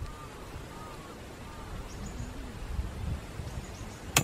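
Wind rumbling on the microphone, with faint bird chirps in the first second and a single sharp click near the end as the frying pan is handled.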